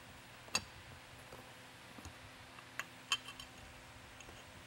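A few faint, sharp clicks and clinks of the siren speaker's metal driver and mounting bracket being handled and turned during reassembly: one about half a second in, a pair near the three-second mark, and a few lighter ticks after.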